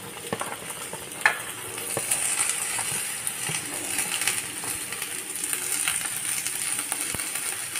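Potato cubes sizzling in hot oil in an iron kadhai as cut cowpeas are tipped in, giving a steady frying hiss with scattered light clicks and taps of beans landing in the pan during the first few seconds.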